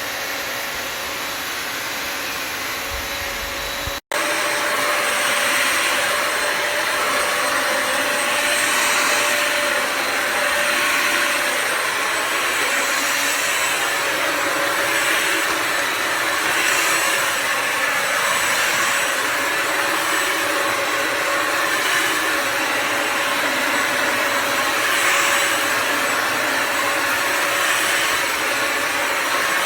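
Bissell Symphony Pet vacuum and steam mop running steadily, its motor giving a steady whine. The sound breaks off for an instant about four seconds in and comes back louder, then swells and eases about every two seconds.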